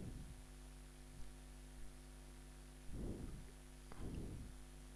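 Steady low electrical hum, with two dull low thumps about a second apart near the end.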